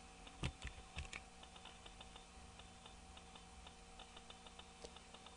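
Faint clicking of computer keyboard keys: a few sharper knocks in the first second or so, then light, quick key ticks.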